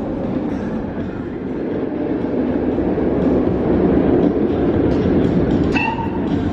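A train rumbling along its track, building to its loudest midway, then easing off.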